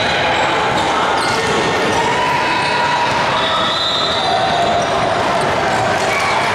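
Basketball being dribbled on a court over a steady background of many voices.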